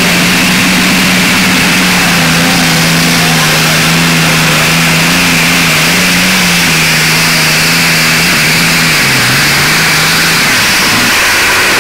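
Modified pulling tractor's engine running under load at high, steady revs. The note dips about nine seconds in and dies away near the end, as flames shoot up from the engine.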